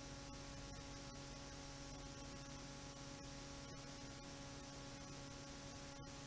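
Steady hiss with a constant electrical hum, a low noise floor with no music audible.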